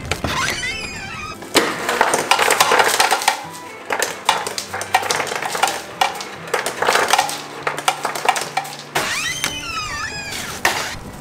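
Ice cubes clattering out of a refrigerator's door ice dispenser into a plastic shopping bag: a long run of rapid clinks and rattles over a low motor hum.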